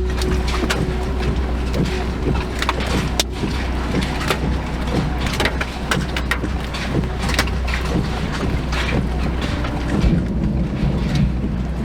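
Steady low rumble of wind buffeting the microphone, with frequent irregular sharp taps and knocks.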